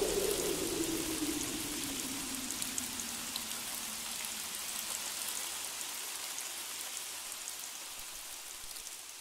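Rain falling as an even hiss with scattered drop ticks, slowly fading out. A tone glides downward under it in the first two seconds.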